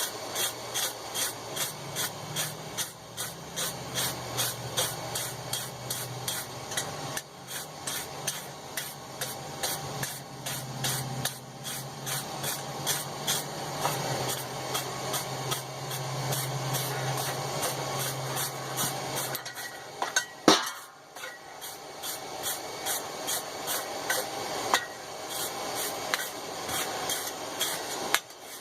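Wire brush scrubbing hot, oil-quenched steel tongs in rapid back-and-forth strokes, about two a second, burnishing the blackened finish. A low hum runs underneath until about two-thirds through, and a single sharp knock comes just after it stops.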